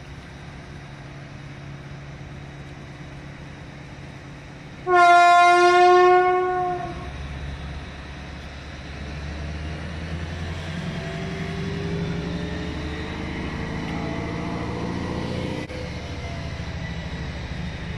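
SU42 diesel shunting locomotive sounding its horn once, a loud single-note blast of about two seconds. Its diesel engine then works harder, the engine sound rising in pitch and loudness over several seconds and dropping back near the end.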